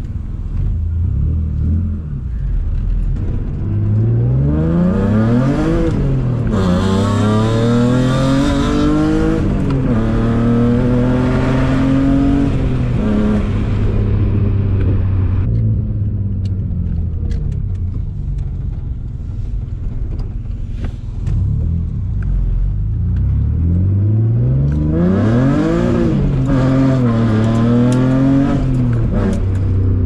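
A BMW E36 M3's straight-six engine, heard from inside the cabin, pulling through the gears. The revs climb and drop back twice as it shifts up, then settle to a steady cruise, then climb and shift twice more near the end.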